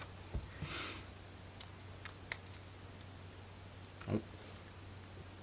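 Faint clicks and taps of thin wooden model-kit pieces being handled and fitted, with a soft thump near the start, a brief hiss just before one second, and a steady low hum underneath.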